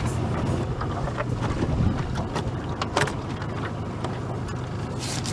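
A small boat's motor running low and steady, with scattered knocks and clicks and wind on the microphone; a short gust of hiss near the end.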